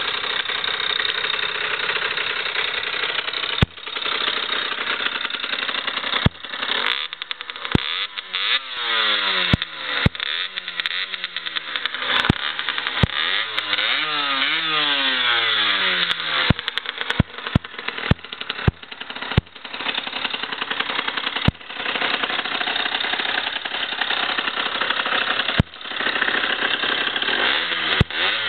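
2004 Aprilia RX 50's 50 cc two-stroke single running through a Giannelli sport exhaust. It idles, then is blipped again and again, the revs rising and falling in quick sweeps. Short sharp clicks are scattered throughout.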